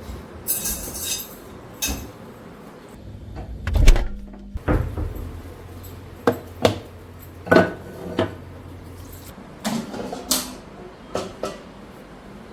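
Irregular knocks and clicks of kitchen work, things set down and handled, with one heavy thump about four seconds in. A low hum runs under them for several seconds in the middle.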